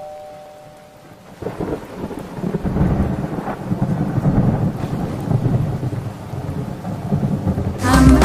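A two-tone ding-dong doorbell chime fading away, then a rumble of thunder with rain that builds over several seconds. The song's music comes back in near the end.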